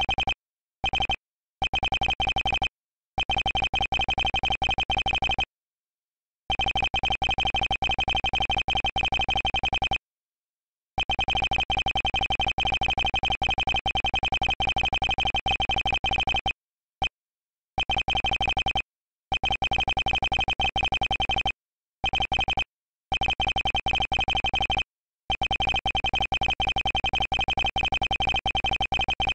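Ace Attorney-style dialogue text blips: a rapid run of short electronic beeps, one for each letter as a text box types out. The beeping comes in stretches of a few seconds and breaks off into short silences at the pauses between sentences.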